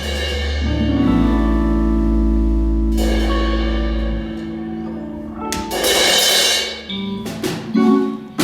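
Rock band playing: a held guitar chord over a low bass note rings for the first few seconds, then a cymbal crash and a few sharp drum hits come near the end.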